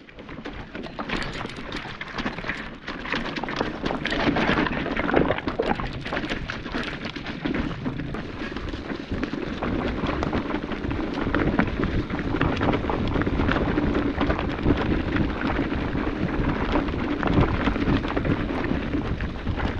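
Electric mountain bike rolling over a rocky trail: a constant rattle and knocking of the bike and camera over rocks and roots, with wind buffeting the microphone. A steady hum joins in about halfway through.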